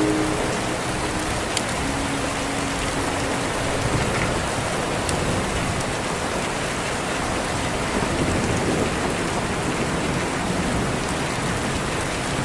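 Steady heavy rain falling, a dense even hiss with no break.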